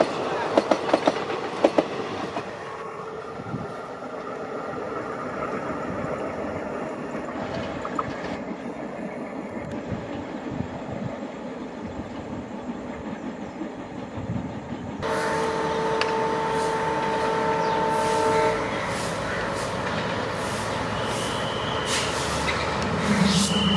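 Passenger coaches rattling past with a clickety-clack over the rail joints, then the train's rumble fading as it moves away. About fifteen seconds in, a diesel locomotive's horn sounds a steady chord for about three seconds. Near the end an approaching diesel locomotive's engine drone rises.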